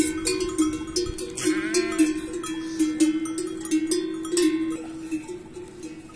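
Livestock neck bells on a flock of goats and sheep, clanking and ringing irregularly as the animals walk, with a short bleat about a second and a half in.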